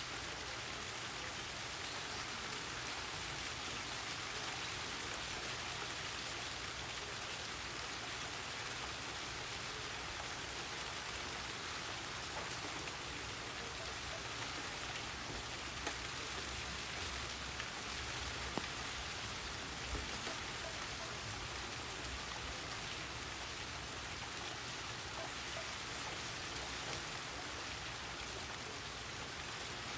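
Steady rain falling and pattering on surfaces, an even hiss, with a few single drops standing out louder around the middle.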